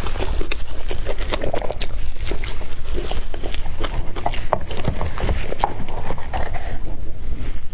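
Close-miked eating sounds: chewing and biting an egg wrap, with many short mouth clicks and smacks.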